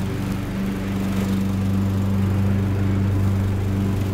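Riding lawn mower's small engine running steadily as the mower drives across the lawn, a little louder from about a second in as it comes closer.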